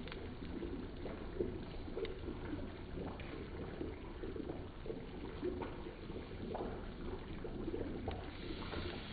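Chicken curry bubbling as it simmers in a pan over a wood fire, with occasional sharp crackles from the burning wood.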